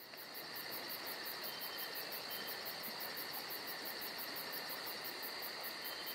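Crickets calling steadily: a continuous high trill with an even, very high-pitched pulsing of about six beats a second.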